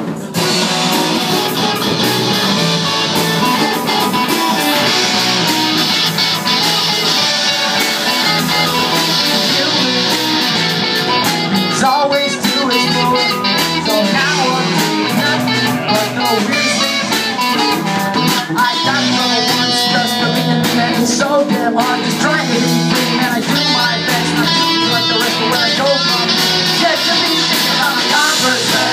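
Live rock band playing through amplifiers: distorted electric guitars over a drum kit, kicking in abruptly at full loudness and carrying on at a steady level.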